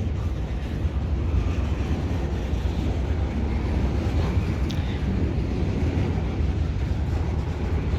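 Diesel locomotive engine running with a steady low rumble as the switching move backs into the yard.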